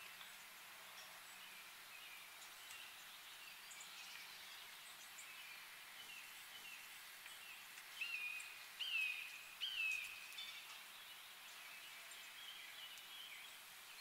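Faint outdoor bird and insect chorus with scattered small chirps. About two-thirds of the way through, a bird gives three louder whistled calls about a second apart, each falling in pitch and then holding briefly.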